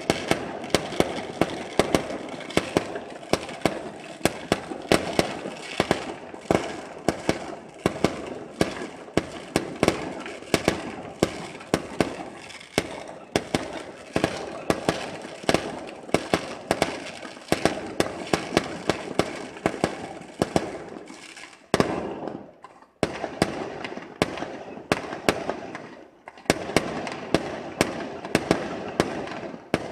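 Aerial fireworks display: a rapid, continuous run of sharp bangs from bursting shells, with a brief lull about 22 seconds in.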